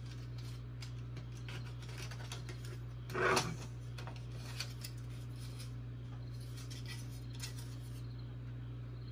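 Hard plastic robot body cover being handled: scattered light clicks and taps as it is set on and lifted off the chassis, with one louder scraping rustle about three seconds in.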